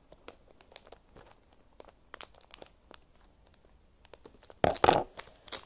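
A small wrapper being picked at and torn open: faint scattered crackles, then a loud burst of tearing and crinkling about four and a half seconds in.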